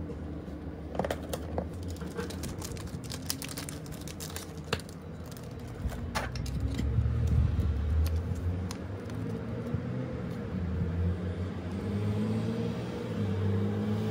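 Thin plastic packaging crinkling and clicking as it is handled and a photocard in a clear plastic sleeve is taken out. The crackles come thickest in the first half. Under it all runs a steady low rumble.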